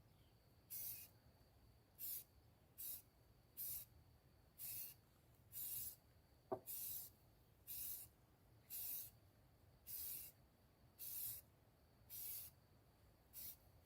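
Aerosol spray paint can sprayed in short squirts: about thirteen brief hisses, roughly one a second, with a single sharp click about halfway through.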